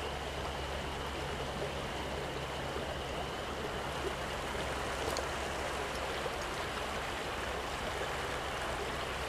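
Small creek's water running steadily, an even hiss of flowing water with no breaks.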